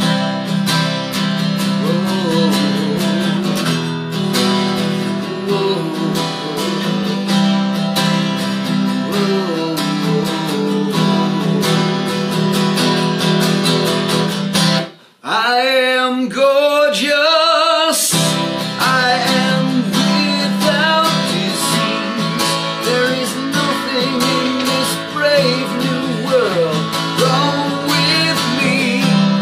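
A man singing to his own strummed acoustic guitar. About halfway through, the guitar drops out for about three seconds while he holds a sung phrase alone, then the strumming comes back in.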